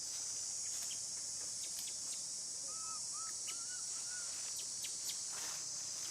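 Steady high-pitched drone of insects, with faint clicks and a short run of five or six small arched chirps around the middle.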